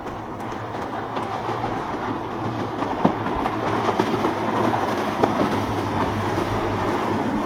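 Boat engines running with rushing water noise, a steady rumble building slightly, broken by scattered sharp knocks.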